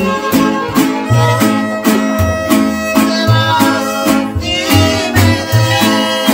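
A string conjunto of violins, strummed guitars and an acoustic bass playing an instrumental passage. The violins carry a held melody over an even strummed beat and alternating bass notes.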